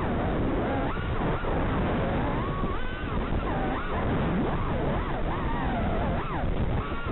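Racing quadcopter's brushless motors and propellers running hard, their pitch gliding up and down quickly and repeatedly with the throttle, over a steady noisy rush of air and prop wash.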